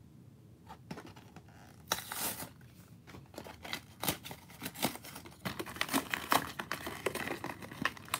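Hands tearing open a toy car's blister pack: cardboard ripping and clear plastic crinkling in a quick run of sharp rips and crackles that starts about two seconds in and gets busier in the second half.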